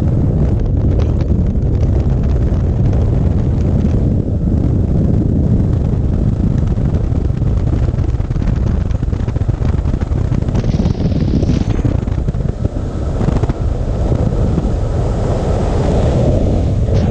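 Airflow from paragliding flight buffeting the camera's microphone: a loud, steady, low rumbling rush of wind that flutters constantly and dips briefly about three-quarters of the way through.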